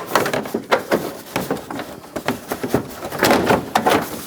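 Plastic inner fender liner of a pickup's front wheel well being flexed and worked loose by hand: irregular clacks and knocks of the plastic, with a longer stretch of scraping and rustling about three seconds in.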